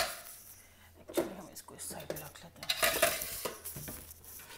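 Cookware being handled on a glass-top stove, with metal clanks about a second in and again around three seconds.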